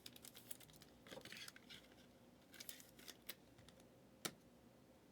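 Near silence with faint scattered clicks and soft rustles of trading cards being handled, and one sharper click about four seconds in.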